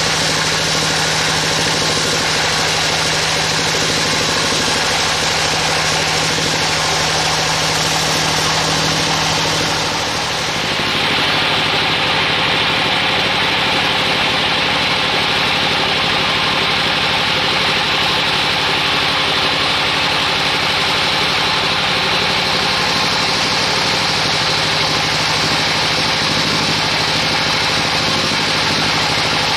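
Vertical band sawmill running steadily, its blade sawing lengthwise through a large damar (Agathis) log: a constant machine hum under a loud, even hiss. About ten seconds in the sound dips briefly, then carries on with slightly duller hiss.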